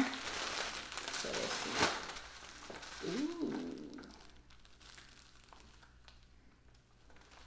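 Plastic packaging crinkling and rustling as a wig is pulled out and handled, with one sharp click about two seconds in. The rustling fades to faint handling noise after about four seconds.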